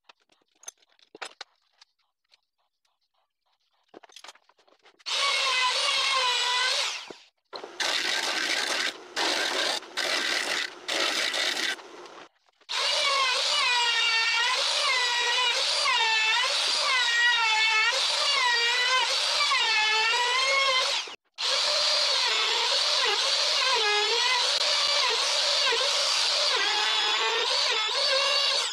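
Handheld trim router cutting the edge of an end-grain hardwood cutting board. After a few quiet seconds with faint clicks, it is switched on and run in short bursts, then cuts steadily with its high whine wavering as the bit bites the wood. It stops briefly about three-quarters of the way through.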